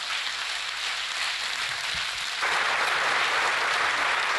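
A large seated audience applauding, the clapping swelling louder about halfway through.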